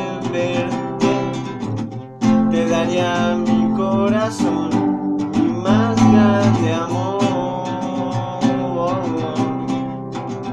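Acoustic guitar strummed in chords, with a man singing a melody over it.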